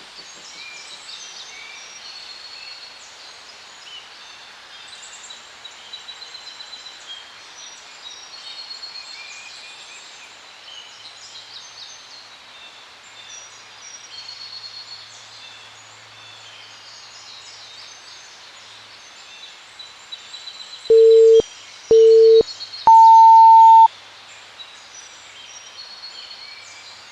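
Workout interval-timer beeps over a background of birds chirping. About 21 seconds in come two short, low beeps, then one longer beep at about twice the pitch, marking the end of the interval.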